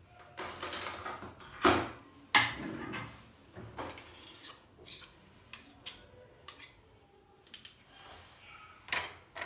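A metal spoon clinking and scraping against a ceramic mixing bowl as a spoonful of sweetened condensed milk is scraped off into liquid whipping cream. There are a few sharp clinks, spaced out.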